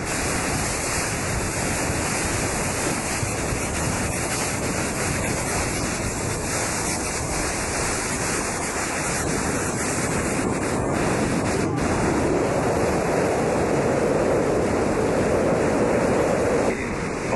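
Wind buffeting the microphone over the steady rush of sea water churning along the side of a moving ship, a loud, even noise that grows a little louder in the second half.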